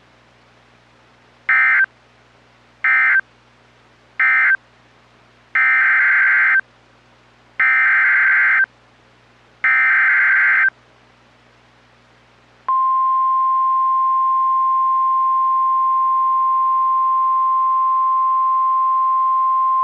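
NOAA Weather Radio alert signalling. Three short bursts of warbling digital SAME data end the previous message. Three longer bursts of the same data then open the next warning. About 13 seconds in, the steady single-pitch 1050 Hz warning alarm tone starts and holds.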